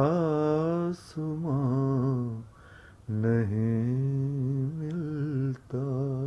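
A man singing a ghazal unaccompanied, drawing out long held notes with a slight waver in pitch, in four phrases broken by short breaths.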